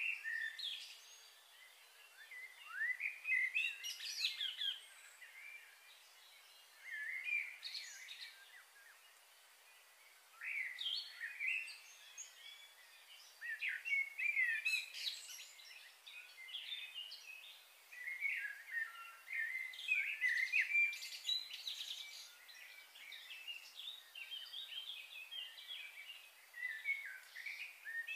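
Songbirds chirping and singing in short bursts of quick, up-and-down notes, a phrase every few seconds with brief quiet gaps between.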